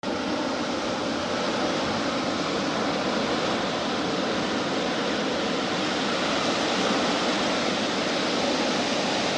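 Steady rushing hiss, even and unchanging like static or surf, starting abruptly out of silence.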